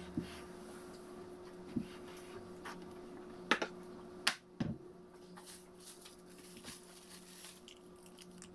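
A few light knocks and clacks as a wire fruit basket and a wooden board are handled and set down on a kitchen counter, over a steady low hum. The sharpest clacks come around three and a half and four seconds in.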